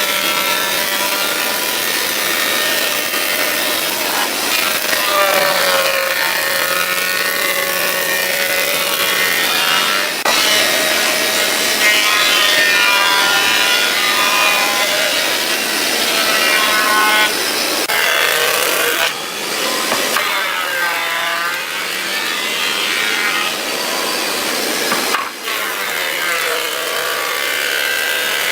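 Electric woodworking tool cutting wood, its motor pitch sagging and recovering as it works under load, with short dips in level.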